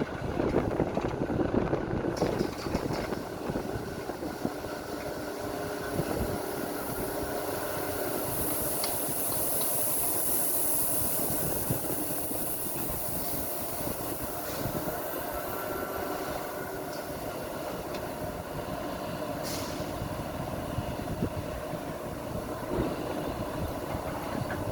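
Heavy machinery running steadily, with a high hiss rising over it for a few seconds about a third of the way in.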